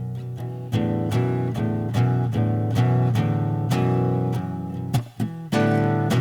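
Acoustic guitar strumming chords in a steady rhythm as an instrumental introduction, with a brief break about five seconds in.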